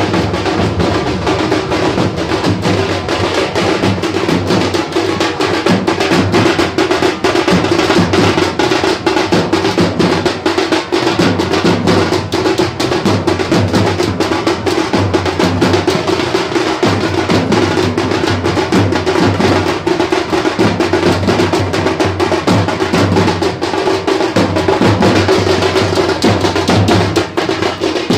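Singha baja procession band: several stick-beaten drums playing a dense, fast, continuous beat, with steady low tones running underneath.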